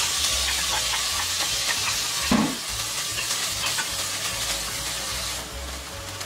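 Chopped kimchi sizzling as it hits hot oil in an enameled cast-iron pot and is stir-fried with a wooden spatula, with small scraping clicks. The sizzle starts suddenly and eases off near the end; a dull knock comes about two and a half seconds in.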